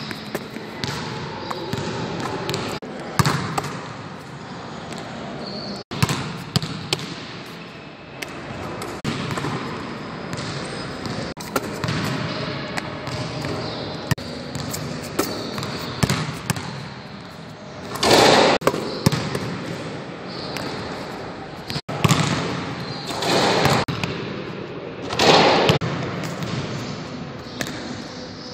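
A basketball bouncing repeatedly on a hard court floor as a player dribbles, each bounce a sharp knock ringing in a large gym hall. A few louder, less distinct noises under a second long stand out, the loudest about two-thirds and nine-tenths of the way through.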